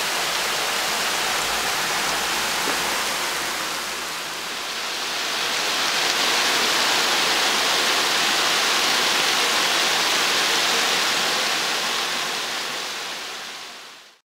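Heavy downpour: a steady hiss of rain falling on rooftops and a wet street. It dips briefly about four seconds in, comes back louder and brighter, then fades out near the end.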